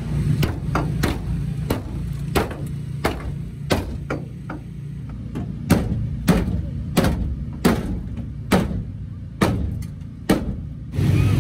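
Hand hammer striking metal under a race car, about twenty sharp blows at an uneven pace of one to two a second, with a steady low hum beneath. It is straightening crash damage on the car after a wreck.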